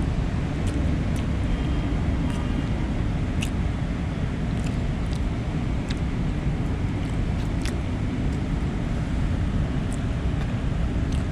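Steady low outdoor rumble, with scattered light clicks and taps of a utensil against a takeout plate-lunch container while eating.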